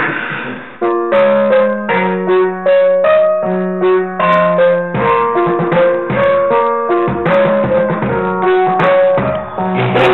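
Piano-style keyboard playing a melody of held notes and chords over a sustained bass note, starting about a second in.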